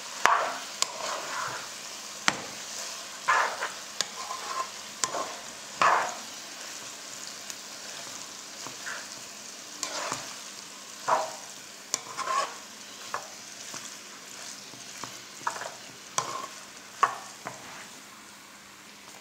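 A plastic spaghetti spoon tossing and stirring noodles, chicken and vegetables in a non-stick pan: irregular scrapes, soft clicks against the pan and rustling of the food, about one stroke a second, growing sparser near the end.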